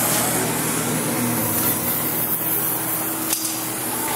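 Gas welding torch flame hissing steadily while a seam is being welded.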